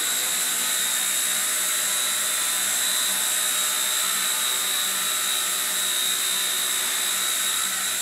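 Skyartec WASP100 Nano CP micro RC helicopter in flight: a steady high-pitched whine from its small electric motors and spinning rotors, holding an even pitch.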